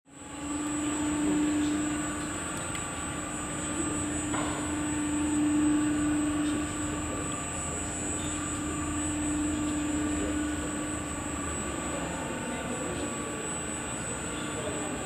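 Steady mechanical drone from the drive machinery of a kinetic installation moving heavy stone facade fragments: a low hum with a constant high whine over it, starting just after the beginning.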